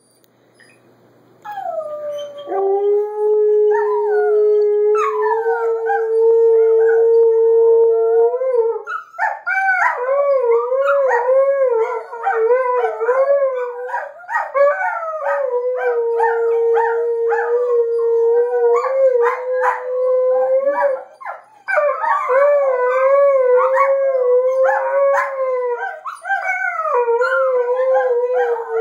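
Alaskan Malamute howling: one long, steady howl starting about two seconds in, then from about nine seconds in a wavering run of overlapping howls as another dog joins in, with a brief break about two-thirds of the way through.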